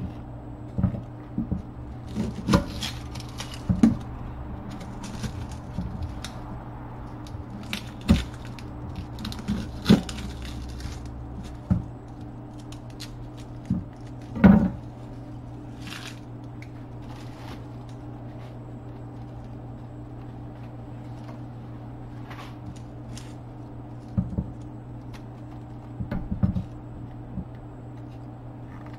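Irregular knocks and clatter of kitchen prep on a wooden cutting board, with a knife and a bowl being handled, over a steady low hum. The knocks come thickly in the first half, the loudest about halfway through, then thin out to a few near the end.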